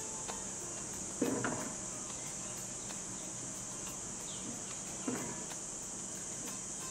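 Steady high-pitched chirring of insects, with two short knocks about a second in and about five seconds in as the baby mangoes are handled.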